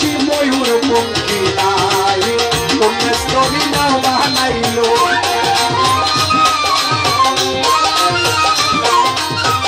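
Instrumental interlude of Bengali baul folk music: a wavering melody line over steady, busy hand percussion and a shaker-like rattle.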